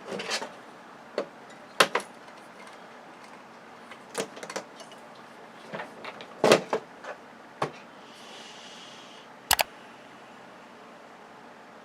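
Irregular clicks and knocks of TV parts and tools being handled and set down during hand disassembly of a flat-screen television, with the two loudest knocks in the second half.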